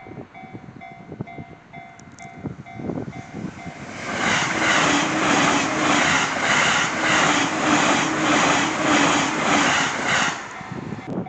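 Japanese level crossing alarm ringing in a steady, repeated electronic ding. About four seconds in, a train on the Joban Line passes at high speed: a loud rush with a rhythmic clatter of about two beats a second as the cars go by. The rush stops abruptly near the end, and the crossing alarm rings on.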